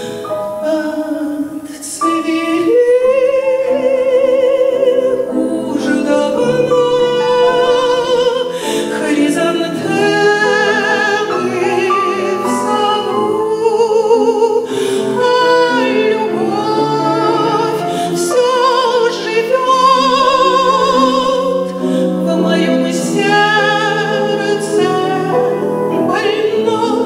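A woman singing a Russian romance in a full classical voice with wavy vibrato, accompanied on grand piano.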